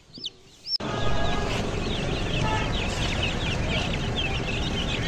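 Ayam Cemani chicks peeping: a few single high peeps, then suddenly a whole boxful peeping at once, many overlapping calls over a steady background noise.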